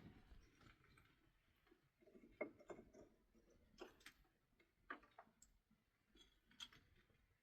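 Near silence with faint, irregular clicks and taps, about a dozen scattered through it.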